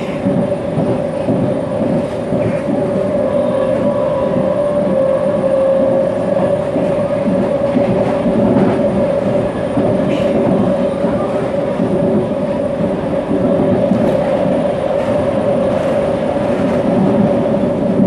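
CPTM Série 1700 electric train running at steady speed, with a steady motor hum and a few faint clicks from the wheels over the track.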